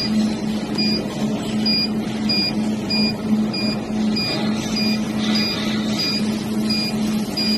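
Short electronic beeps, about two a second, from a jewelry laser welding machine's touchscreen as its minus button is pressed over and over to step a setting down. Under them is the welder's steady low hum.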